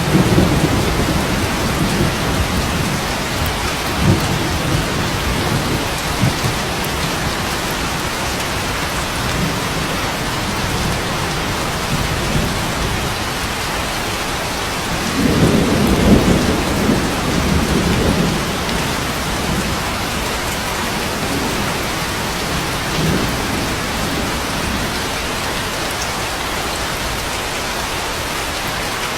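Steady rain with rolling thunder. A long, loud rumble comes about halfway through, lasting a few seconds, with a few shorter, softer rumbles before and after it.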